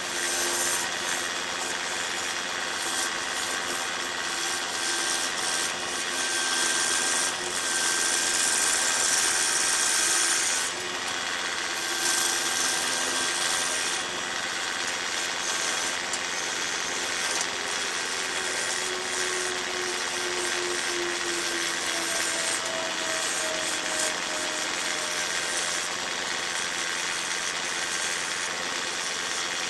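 Lathe-turning tool cutting the outside of a large jacaranda bowl spinning on a wood lathe: a steady hiss of shavings coming off over the lathe's hum, swelling and easing as the cut goes on.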